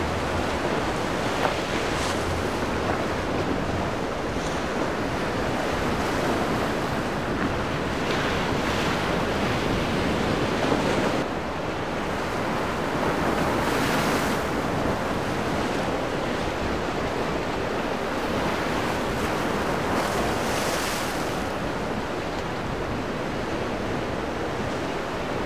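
Rough surf and wind buffeting the microphone: a steady rush of breaking waves that surges louder a few times.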